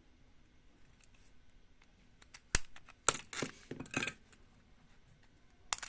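A few small sharp clicks and taps from handling a mobile phone's parts during disassembly: one about two and a half seconds in, a short cluster around three seconds, another at four seconds and one near the end.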